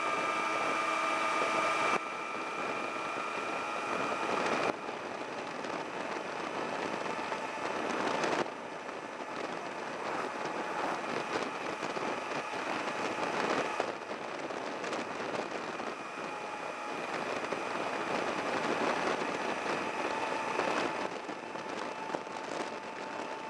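Motorcycle riding at about 65–70 km/h: steady wind rush over the microphone, with the engine's note faintly underneath. The rush drops abruptly a few times in the first several seconds.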